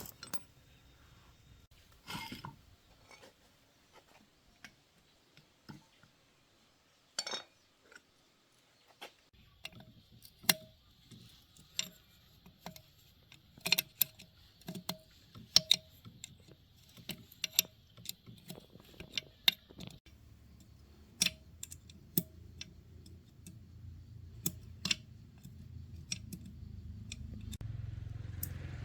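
Metal parts and hand tools clicking and clinking in scattered taps during motor repair work. A low hum comes in about a third of the way through and grows louder toward the end.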